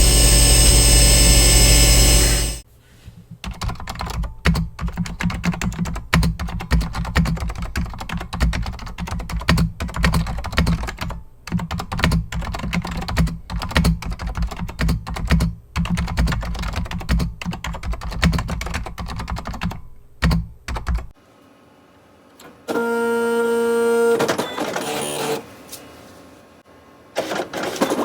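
Vintage Macintosh keyboard being typed on, a long run of rapid irregular key clicks. Before it a steady loud noise cuts off, and after a pause a short pitched electronic tone sounds before clicking resumes.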